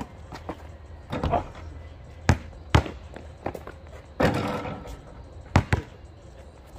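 A basketball bouncing on an outdoor asphalt court: a series of separate sharp bounces, with a longer clattering hit about four seconds in as a player goes up at the hoop.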